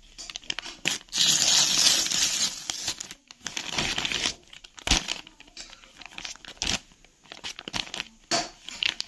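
Kraft-paper courier bag being torn open: a long rip starting about a second in and lasting around two seconds. Then rustling and crinkling of the paper bag and plastic-wrapped clothing packs as they are pulled out, with a few sharp clicks.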